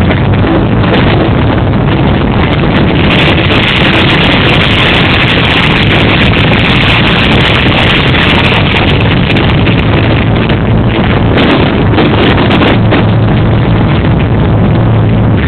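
Fireworks display heard through an overloaded microphone: a constant loud rumble, with a dense stretch of rapid crackling from about three seconds in to about nine, and scattered sharp pops after it.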